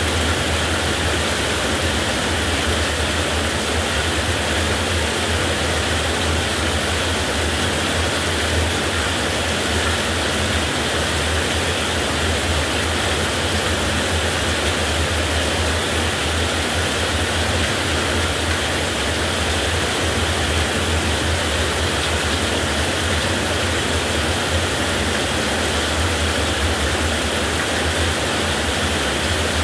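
Heavy rain falling steadily in a dense, even hiss with a low steady rumble underneath and no thunderclaps.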